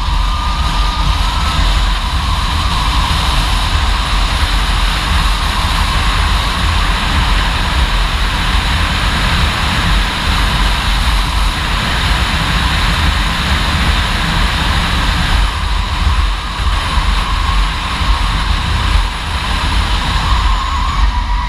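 A 2017 Chevy Bolt EV driven hard on an autocross course: heavy wind buffeting on an outside-mounted microphone and tyre roar. A wavering tyre squeal comes in at the start and again near the end as the car works through corners.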